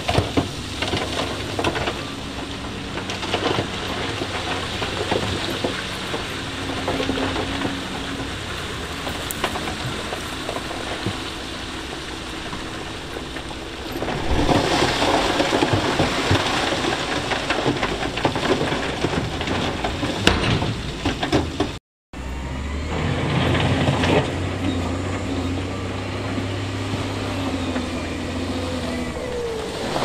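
Heavy diesel earthmoving machinery working, its engines running under a rough, rumbling noise that grows louder about halfway through. After a brief dropout about two-thirds of the way through, a deeper, steady engine note comes in.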